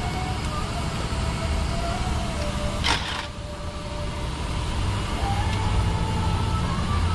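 A heavy truck's engine idling steadily, with a short hiss about three seconds in.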